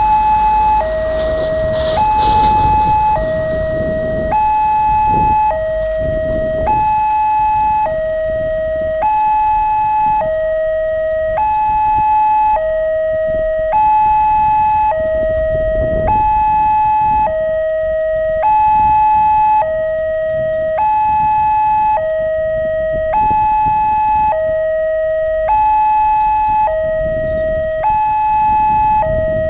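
Railway level crossing warning alarm from the loudspeaker on the crossing post: an electronic two-tone signal switching steadily between a high and a low tone about every 0.7 s, sounding while the boom barrier is down to warn that a train is coming.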